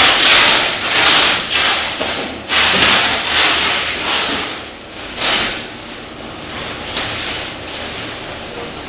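Rustling, rubbing noise in several loud bursts over the first five seconds, then settling to a lower steady hiss.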